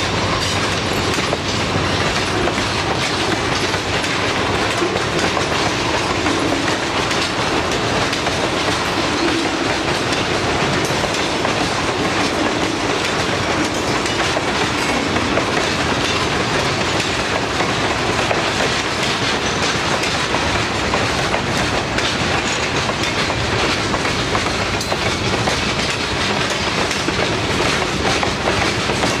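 Freight train's tank cars and boxcars rolling slowly past, their steel wheels clicking steadily over the rail joints with the rumble of the cars.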